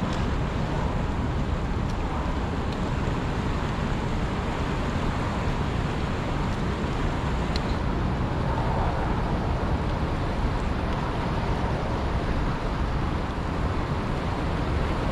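Steady, unbroken rushing of water pouring through the dam's spillway, a deep even roar with no breaks.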